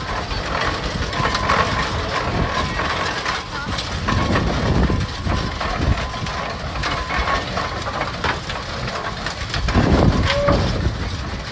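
Case steam traction engine under way: steam exhaust chuffing, with the clank and rattle of its gearing and iron wheels rolling on pavement.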